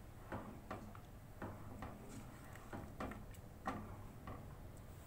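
A pot of milk and soaked rice cooking on the stove: soft, irregular ticks and taps, about two a second, over a faint steady low hum.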